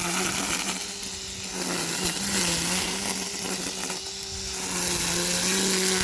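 EGO 56-volt battery-powered string trimmer running with a steady electric whine, its line cutting through tall weeds and grass. The pitch dips slightly now and then as the growth loads the head.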